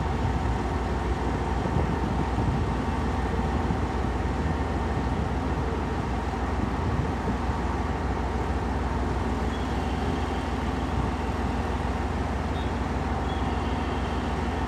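KiHa 121 diesel railcar's engine idling steadily, a constant low hum with no revving.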